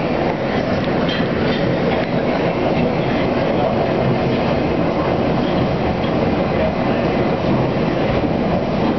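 A London Underground 1967 Stock train running at speed through a tunnel, heard from inside the car: a steady noise of wheels on rail, echoing off the tunnel walls.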